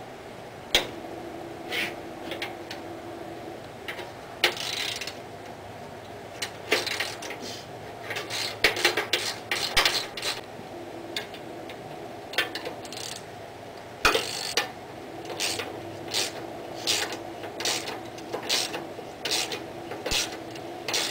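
Socket ratchet clicking in short, irregular bursts as bolts are run in and out on a lawn tractor's steel dash frame, with sharp metal clinks between, over a steady low hum.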